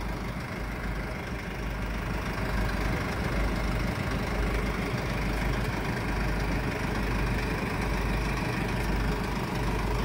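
A vehicle engine idling, a steady low rumble.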